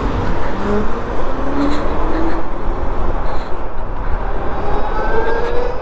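Wind rushing over a helmet-mounted microphone as an electric motorcycle pulls away, with no engine sound, only faint whines rising in pitch about a second in and again near the end as it picks up speed.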